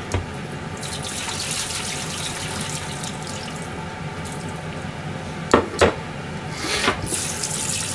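Kitchen tap running and water splashing into a stainless steel sink as the rinse water is tipped off offal in a pot. Two sharp knocks about five and a half seconds in, and the water gets louder near the end.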